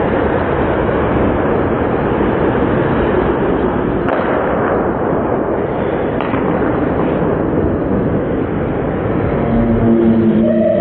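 Steady, dense noise of an indoor ice rink during a hockey game, picked up by a camcorder microphone. Near the end a held pitched sound with overtones joins in.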